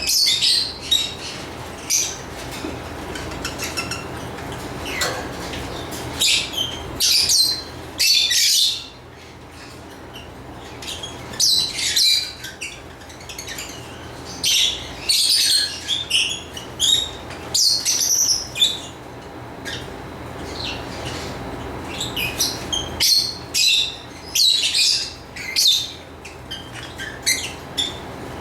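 Pet lovebirds chirping and squawking, short shrill calls in irregular bursts, with a brief lull about nine seconds in.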